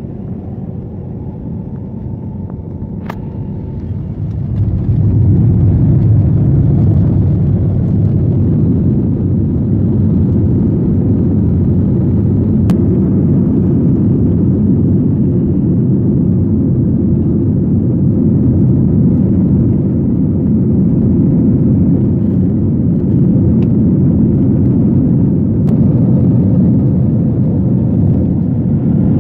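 Jet airliner's engines heard from inside the cabin, spooling up to takeoff power over the first few seconds with a faint rising whine, then a steady loud rumble through the takeoff roll and climb-out.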